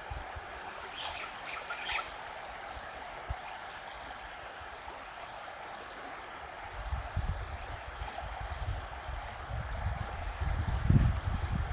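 Swollen, fast-flowing floodwater of a river rushing steadily. A few short bird calls sound about a second in, and a brief thin whistled note comes around three seconds in. From the second half, low gusts of wind rumble on the microphone, growing louder near the end.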